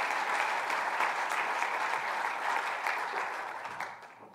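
Audience applauding, a dense patter of hand claps that fades away near the end.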